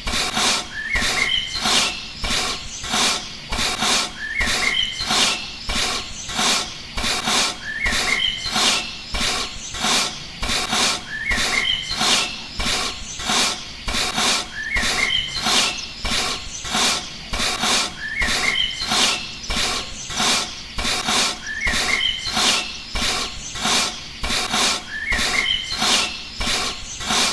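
A looped background track: quick clicks about two a second, with a short rising chirp every three to four seconds.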